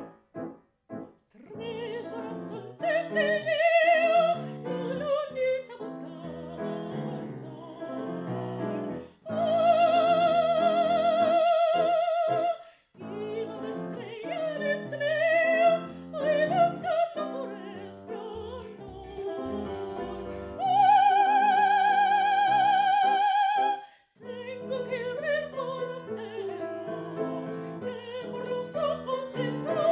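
Operatic singing with piano accompaniment. The voice sings with a wide vibrato and holds long high notes about ten seconds in and again about twenty-one seconds in.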